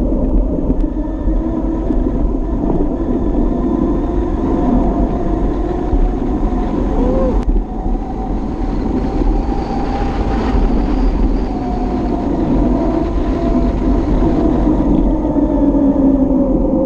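Wind rushing over the action camera's microphone, with road noise from a bicycle riding on asphalt. A wavering hum runs under it and falls in pitch near the end.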